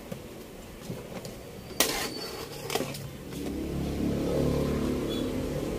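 A few light clicks and two sharper knocks near the middle, then a motor vehicle's engine running steadily from about halfway, growing louder toward the end.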